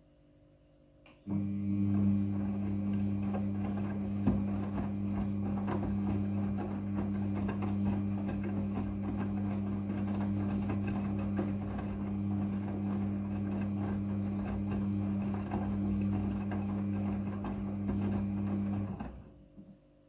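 Midea front-loading washing machine turning its drum during the wash: the motor starts about a second in with a click and runs for some 18 seconds with a steady low hum, the wet towels tumbling and sloshing in the drum, then it stops.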